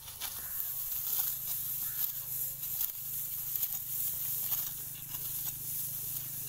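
Hand sickle slicing through dry wheat stalks near the ground: short, irregular crisp cuts and rustling of the gathered stalks, over a steady high hiss.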